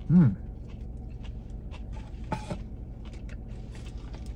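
A man chewing a bite of cheeseburger, with soft mouth clicks. He gives a short rising-and-falling "mm" hum just after the start and a fainter one about two seconds in. A steady low hum runs underneath.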